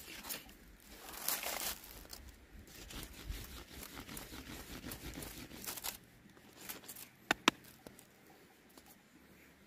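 Bamboo being split and stripped by hand: irregular fibrous tearing and scraping, with two sharp clicks about seven seconds in.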